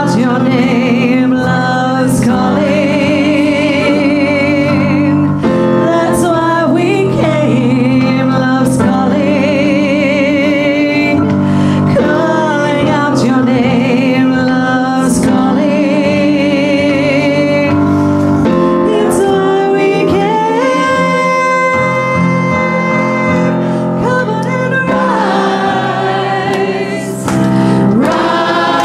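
A gospel-style church choir singing with keyboard accompaniment, led by a solo female voice with a wide vibrato. There is a long held note about two-thirds of the way through.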